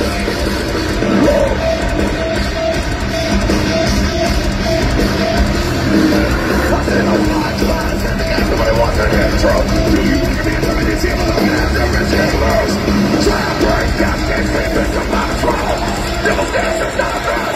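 Live heavy metal band playing through a concert PA: distorted electric guitars, bass and drum kit, heard from within the crowd.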